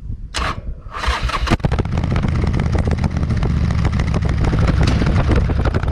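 Harley-Davidson V-twin motorcycle engine running, with a few short rushes of noise in the first second and a half before the engine sound swells and holds steady.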